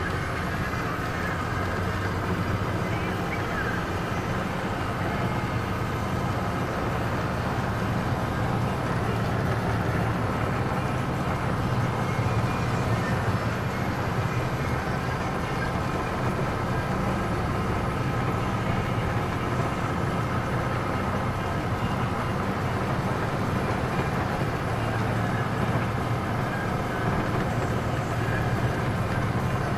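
Car engine and tyre noise heard from inside the cabin, running steadily while driving on a paved road.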